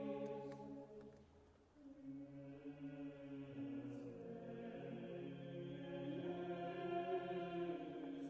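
Background choral music: a choir singing slow, held chords, fading briefly about a second and a half in before the next phrase begins.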